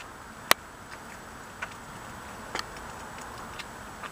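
Cat chewing on a catfish: sharp, irregular crunching clicks of its teeth on the fish, the loudest about half a second in, then softer ones roughly once a second.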